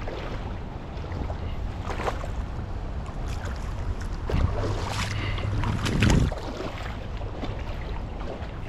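River water moving with wind buffeting the microphone: a steady low rumble broken by scattered short knocks and splashes, the loudest about six seconds in.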